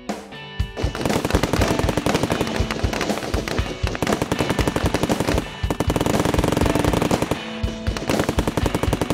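Rapid, continuous machine-gun fire sound effects from several guns at once, starting about a second in, with short let-ups a little past halfway and near the end. Background music plays underneath.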